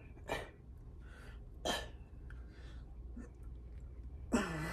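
A man's forceful exhales and short grunts, falling in pitch, as he strains through reps of one-arm dumbbell lateral raises. There are three loud ones, the last and loudest near the end, with quieter breaths between.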